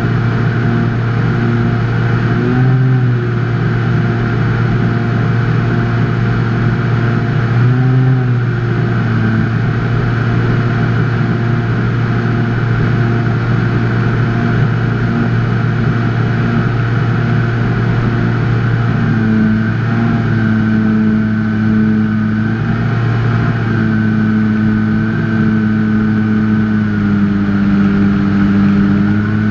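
Electric motor and propeller of an FPV model airplane, heard through its onboard camera: a loud, steady hum. The pitch rises briefly about three seconds in and again about eight seconds in, then steps up and down over the last ten seconds as the motor speed changes.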